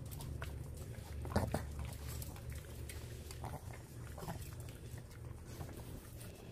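Small dogs making short dog noises as they are hand-fed treats, with scattered light clicks that fit their claws on the tile floor, over a steady low hum.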